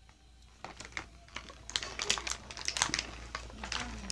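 Hard plastic Beyblade parts being handled, giving a run of sharp clicks and rattles that grows busier from about half a second in.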